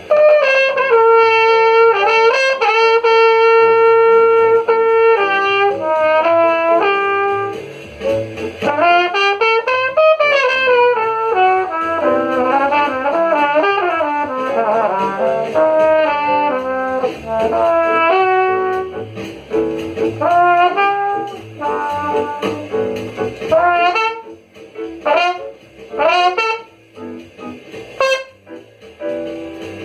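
Jazz solo on a brass instrument playing a single melodic line: a long held note, then phrases with smooth pitch glides, breaking into shorter, choppier notes near the end.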